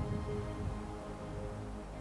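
Background music: held notes over a steady low bass, with no gunshot in it.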